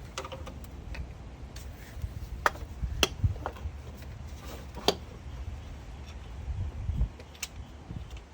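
A replacement starter motor being worked into place in an engine bay: handling noise with a handful of sharp clicks and knocks, the clearest between about two and five seconds in.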